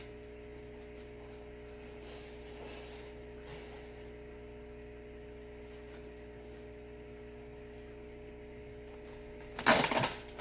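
Steady hum with a few faint rustles of packaging being handled, then a short, loud burst of crinkling and rustling near the end as the shipping wrapping is unwrapped.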